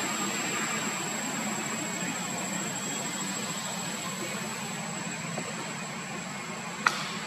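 Steady outdoor background noise: a low hum under a thin, steady high-pitched whine, broken by one sharp click near the end.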